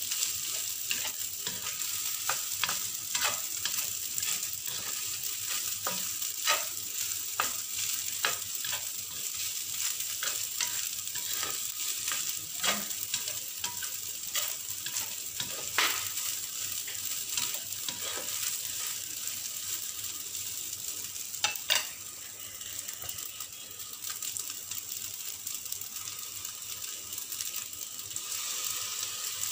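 Rice stir-frying in a stainless steel wok: a steady sizzle with irregular scrapes and clicks of a plastic spatula against the pan.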